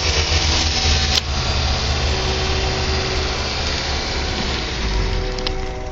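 A steady low rumble and hiss, with the chord of a distant train horn sounding faintly from about two seconds in and growing clearer near the end as the train approaches.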